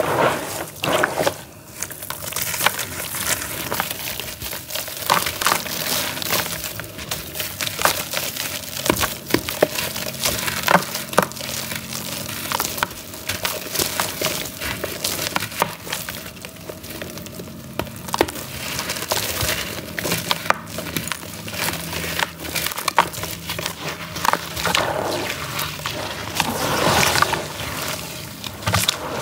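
A grainy charcoal cake crumbled by hand into water: a gritty, crackly crunching, with grains pattering and plopping into the water. Near the end the hands swish and splash through the water.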